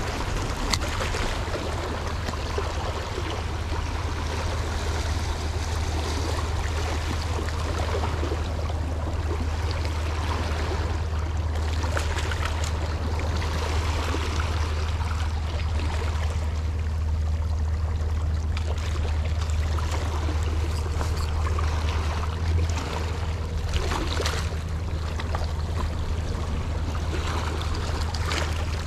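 Seawater sloshing and lapping, over a steady low rumble, with a few brief splashes.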